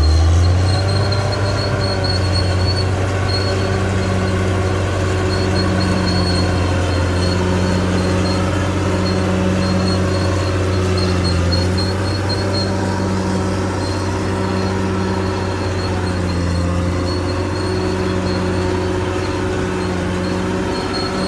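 CAT D6R XL crawler bulldozer working, its diesel engine running with a steady low drone. The undercarriage adds a rhythmic pulsing about once a second and a high squeal from the steel tracks.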